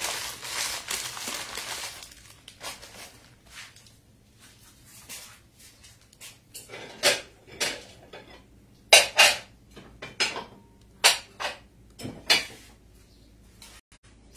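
Paper tortilla wrapping crinkling briefly, then, from about seven seconds in, about nine sharp clinks and clatters of dishes and cutlery being handled.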